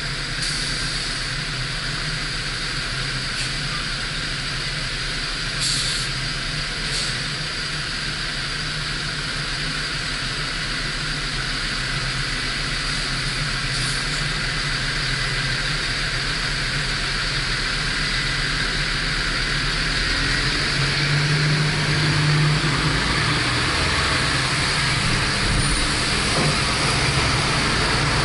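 Car driving on a highway: steady road and tyre noise with a hiss, growing gradually louder, with a low rumble strengthening about twenty seconds in.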